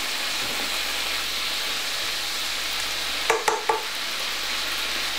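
Chunky leeks sizzling steadily in a frying pan of chicken fat, with a small dash of stock just added to raise steam. A brief clatter a little over three seconds in.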